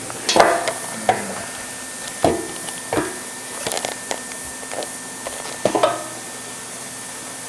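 Irregular knocks and clatters, about eight in the first six seconds, as things are handled and set down. After that only a faint steady hum remains.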